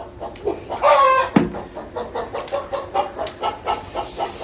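Chickens clucking, a steady run of short clucks about three or four a second, with one sharp knock about a second and a half in.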